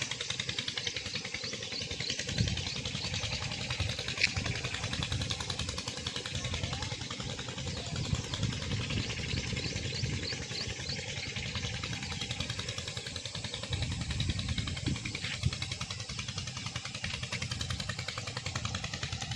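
Heavy rain pouring down steadily, a dense hiss of drops with a low patter beneath, and a sharp tap about four seconds in.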